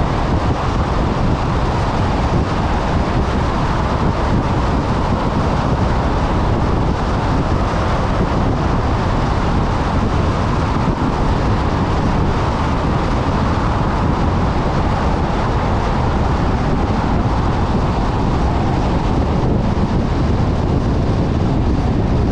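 A car driving at a steady speed: continuous road and wind noise, a low, even rumble that does not change.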